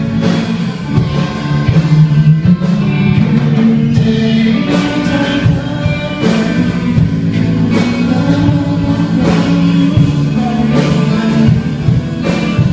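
Music: a song with guitar over a steady drum beat, with a singing voice.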